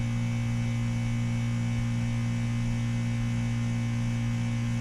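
WaterFurnace geothermal heat pump running in heating mode while being charged with R-427A, giving a steady low hum.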